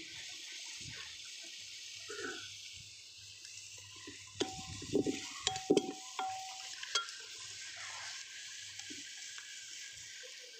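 Onion-tomato masala sizzling in ghee in an aluminium pot, with a steady hiss. Midway a steel ladle stirs and clanks against the pot several times, the metal ringing briefly.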